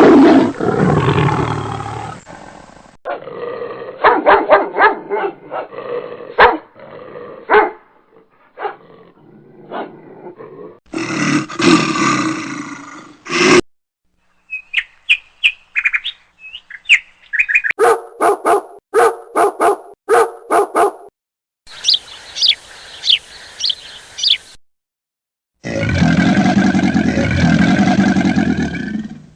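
A run of short animal sound clips cut one after another with brief gaps, among them a dog barking and whimpering, bird-like chirps, and a fast series of repeated calls.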